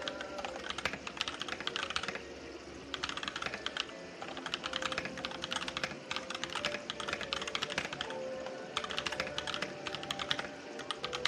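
Typing on a mechanical keyboard fitted with DANGKEY switches: quick runs of key clicks broken by short pauses, with background music underneath.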